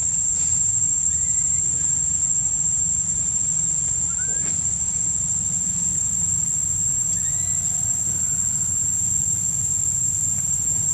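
Steady high-pitched drone of insects, with a low steady rumble underneath and a few faint, short chirps scattered through it.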